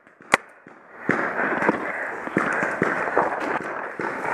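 A paintball marker fires once just after the start, then from about a second in hurried footsteps crunch and rustle through deep dry leaf litter.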